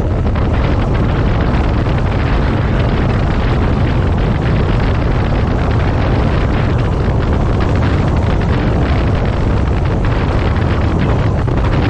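Triumph 900cc motorcycle engine running at a steady cruising speed, with a deep wind rumble on the microphone at a constant loudness.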